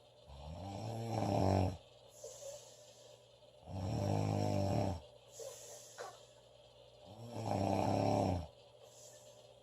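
A woman snoring loudly: three long snores about three and a half seconds apart, with a quieter breath of air between each.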